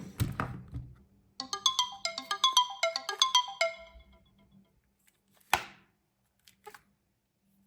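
Smartphone alarm tone: a quick melody of short, bright chime notes plays for about two seconds and stops, after the last thumps of a lower tone in the first second. A single sharp tap sounds a couple of seconds after the melody ends.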